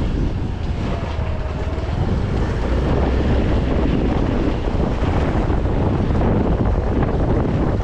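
Wind buffeting the microphone on a Yamaha RayZR 125 scooter ridden at speed, a steady rush with the scooter's running and road noise under it.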